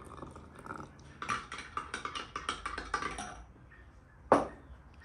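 A metal spoon stirring in a cut-glass tumbler: a quick run of light clinks for about two seconds, then a single loud knock a second later.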